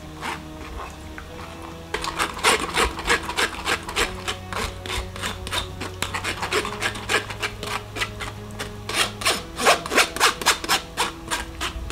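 Metal spoon scraping thick blended chile sauce through a wire-mesh strainer, in quick rasping strokes, several a second. The scraping starts about two seconds in and stops just before the end.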